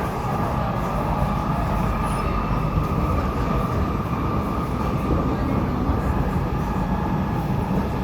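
Steady running noise of a C751B metro train heard from inside the car: a continuous rumble of wheels on rail with a constant hum above it.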